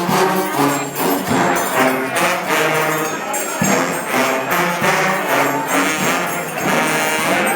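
Trombones playing a tune together, held notes changing every half second or so, with a few sharp percussive hits.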